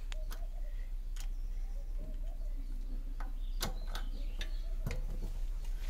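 Scattered, irregular clicks and taps of a pin and lock pin being fitted onto a power weeder's hexagonal rotor shaft, over a steady low hum.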